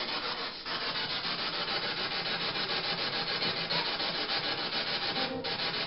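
Continuous rasping static with a fast, even flutter. It drops out briefly twice, about half a second in and again near the end.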